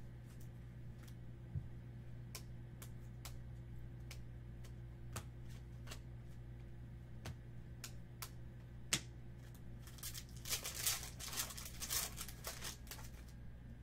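Trading cards being flicked through one at a time, giving light clicks every second or so. About ten seconds in, a foil Topps Chrome card pack is torn open and crinkles for a few seconds.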